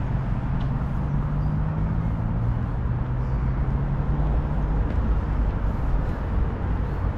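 City road traffic: a passing vehicle's steady engine hum that fades out about three to four seconds in, over a constant low rumble of traffic.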